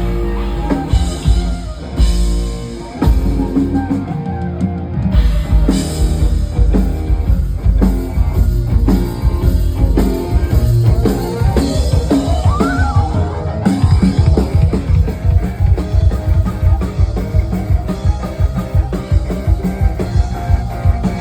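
Loud music with a heavy drum beat and strong bass, played over a sound system during a sound check.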